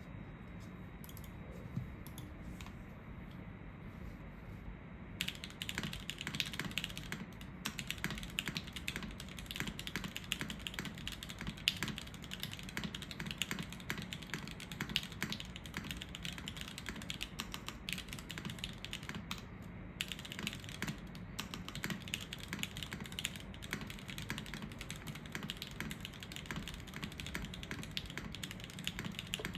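Typing on a Safa TKL mechanical keyboard with lubed Gateron L'orange linear switches, an aluminium plate, top mount, no dampening and GMK keycaps. A few scattered keystrokes at first, then fast continuous typing from about five seconds in, broken by a brief pause about two-thirds of the way through.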